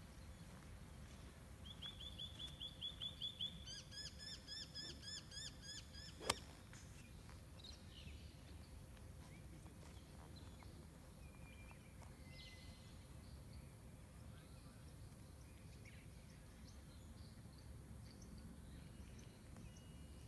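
A bird calling a rapid string of short repeated notes, about eight a second, for some four seconds, then a single sharp click; otherwise faint outdoor background.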